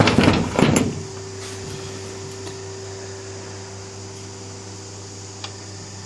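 Metal engine parts scraping and clattering as a VW Superbug engine is taken apart, for about a second, then a steady low hum for the rest.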